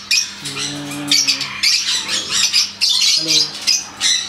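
Large parrots (macaws and a cockatoo) squawking loudly in a rapid series of short calls, with a brief low hum about half a second in and again just after three seconds.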